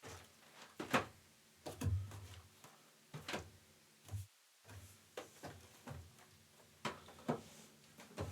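Irregular knocks, taps and soft thuds of objects being handled and set down on a table, about a dozen in all, with the heaviest thuds about two and four seconds in.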